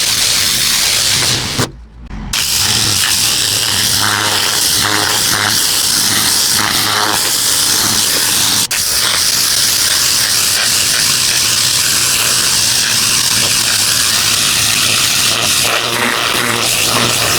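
Pressure washer with a turbo nozzle blasting water onto concrete: a loud, steady spray hiss over a low hum, stopping for about half a second roughly two seconds in, then running on.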